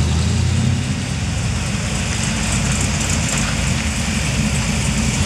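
Low engine rumble of old cars rolling slowly past at walking pace, led by a late-1930s Ford sedan, under a steady hiss. The rumble holds steady for about the first second, then turns rougher and more uneven.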